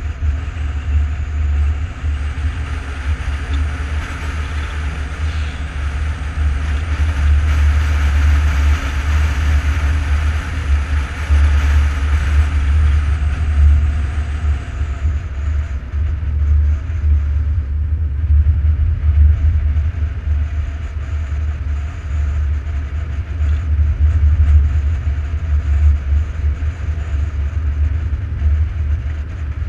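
Wind buffeting the microphone of a camera on a road bicycle descending at speed: a heavy, fluttering low rumble with a rushing hiss of air and tyres on asphalt, the hiss stronger in the first half.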